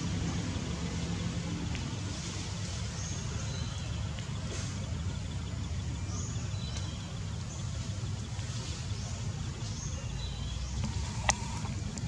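Outdoor ambience: a steady low rumble under short, high chirps that come every second or so, with one sharp click about eleven seconds in.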